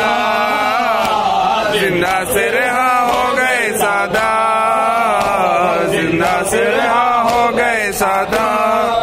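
A male reciter chanting a noha, a Shia lament, into a microphone, with mourners beating their chests in matam: sharp hand slaps roughly once a second under the voice.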